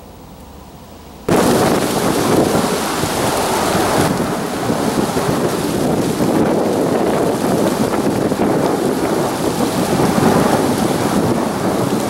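Boeing CH-47 Chinook tandem-rotor helicopter passing close, a loud, dense rumbling rush of rotor noise that starts abruptly about a second in and holds steady.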